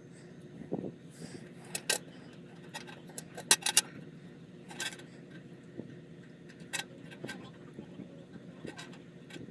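Irregular sharp clicks and taps of tools and small hard parts being handled while a weighing scale is worked on, loudest in a quick run of three clicks about three and a half seconds in. A faint steady hum runs underneath.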